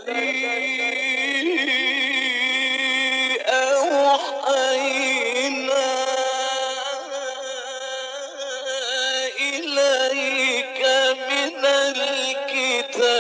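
Male Quran reciter chanting in the melodic mujawwad style, drawing out long ornamented notes whose pitch wavers and bends through the phrase.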